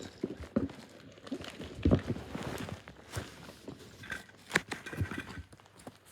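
Irregular knocks, thuds and rustling, like things being handled or moved around, with a sharper knock about halfway through.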